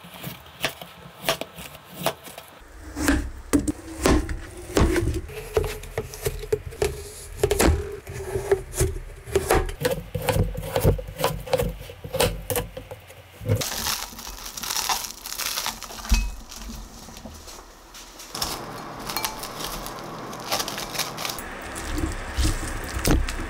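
Kitchen knife chopping softened kabocha squash on a plastic cutting board: a quick run of sharp knocks for about the first half. Then comes a few seconds of plastic-wrap crinkling. Near the end a metal potato masher crushes the squash chunks in a glass bowl.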